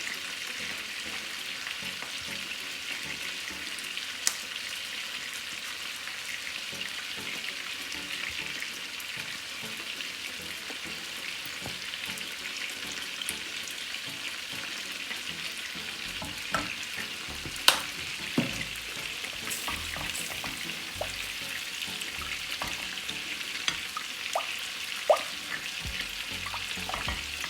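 Butter-based honey glaze sauce sizzling steadily in a pot on the stove, with a few sharp clicks and knocks in the second half.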